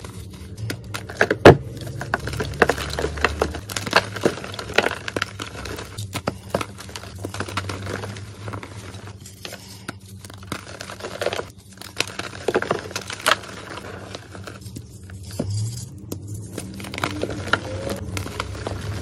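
Hands crushing and crumbling blocks of dyed chalk heavily coated in purple chalk powder: an irregular run of crisp crunches and crackles over a soft powdery crumbling, the sharpest snap about a second and a half in.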